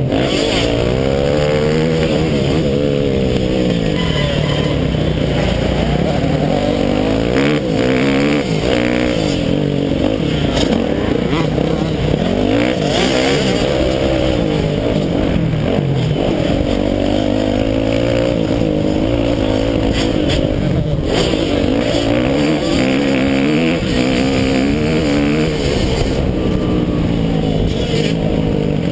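Motocross bike engine, heard from on the bike, revving hard and dropping back over and over as the rider works the throttle through the track, its pitch rising and falling again and again.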